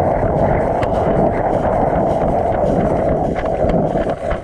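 Loud, steady wind noise buffeting the microphone, a dull rush with a few faint clicks above it. It eases off right at the end.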